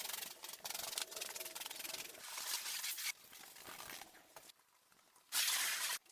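Rubbing and scrubbing on a muddy teddy bear's fur during cleaning, in uneven strokes, with a louder hissing stretch of about a second near the end.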